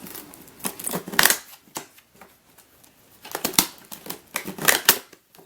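Cardboard retail box being handled and opened by hand: irregular scrapes, rustles and taps of card against card.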